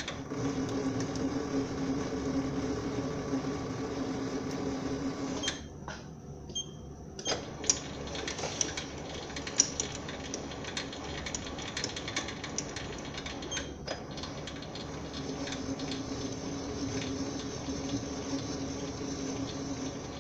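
SIEG SC4 bench lathe running at low speed, around 100 rpm, single-point cutting an M10 x 1.5 thread in steel. A steady motor and spindle hum dips briefly about five and a half seconds in, then sharp ticks and clicks come for several seconds before the steady hum returns.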